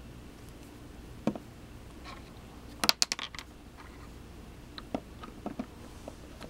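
Small clicks and knocks of a plastic dropper bottle being handled and set down on a wooden tabletop: one click about a second in, a loud cluster of knocks about three seconds in, and a few light ticks near the end.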